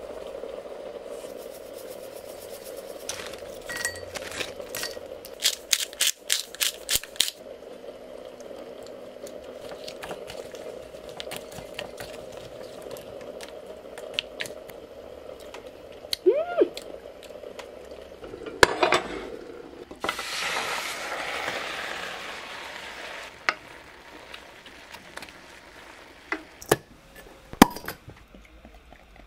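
Mixing a seasoning sauce in a small ceramic bowl: chili flakes poured in, a run of quick clicks, then a wooden spoon stirring and clinking against the bowl, over a steady hum through the first half. Near the end, a sharp click as a bottle cap is pried off with a bottle opener.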